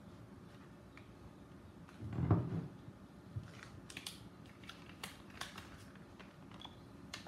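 Faint desk handling noises: a low, muffled thump about two seconds in, then scattered light clicks and taps of small objects being moved about.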